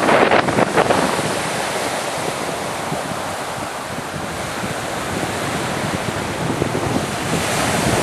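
Surf washing onto a beach under strong wind, the wind buffeting the microphone in gusts, hardest in the first second.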